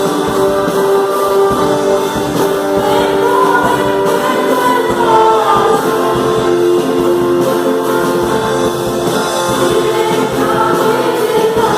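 Music: voices singing a gospel song with instrumental accompaniment, the notes long and held.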